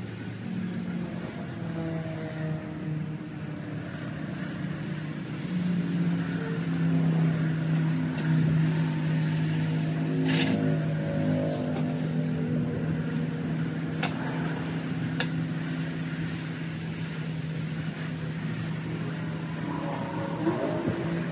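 Yamaha TTR-125's single-cylinder four-stroke engine running on a stand, its pitch stepping up and down as the throttle is worked, with a few sharp clicks around the middle.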